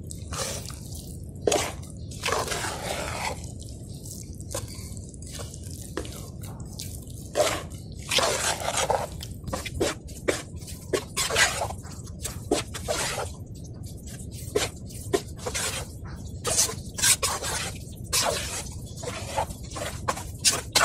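Steel spoon stirring a thick, wet rice-flour batter in a stainless steel bowl: irregular scrapes and clinks of the spoon against the bowl mixed with wet squelching, as the batter is worked smooth to break up lumps.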